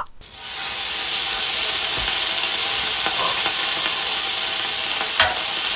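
Slabs of raw hanwoo beef sizzling loudly as they are laid on a hot flat griddle, the hiss starting suddenly just after the start and then holding steady.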